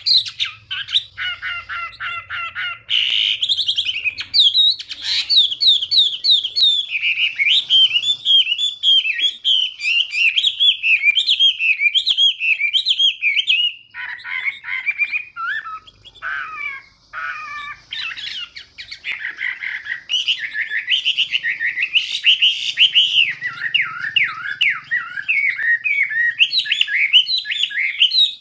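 Chinese hwamei singing a long, varied song of rapid rising-and-falling whistled phrases. About halfway through it breaks into shorter, scattered notes, then goes back to fast, continuous warbling.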